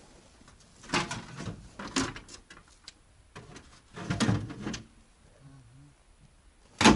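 Scraping, rustling and knocking as things are handled in the front compartment of a ZAZ-968 Zaporozhets, in three short bursts, then a single sharp knock near the end.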